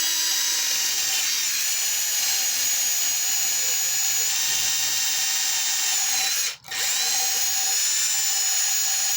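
Electric drill running a cleaning wheel against a cast iron tea kettle, a steady high whine with a scouring hiss. It stops for a moment about two-thirds of the way through, then starts again.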